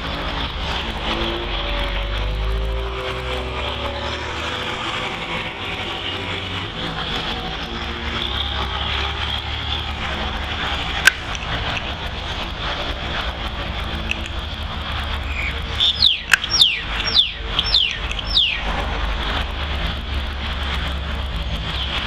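Steady background hum of distant engine noise, with one sharp click about eleven seconds in and, a little later, a run of about six quick high whistles, each falling in pitch.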